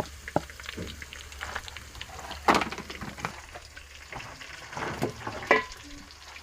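Onions frying and sizzling in a cooking pan, with a spoon stirring and knocking against the pan. There are two louder knocks, about two and a half and five and a half seconds in.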